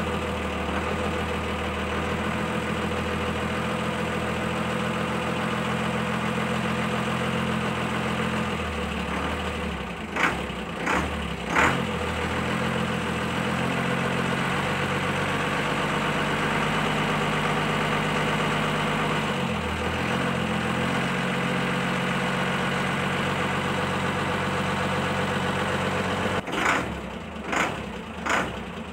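Truck engine sound effect running steadily at idle, its pitch stepping up and down now and then. A few short, sharp louder noises break in about ten to twelve seconds in and again several times near the end.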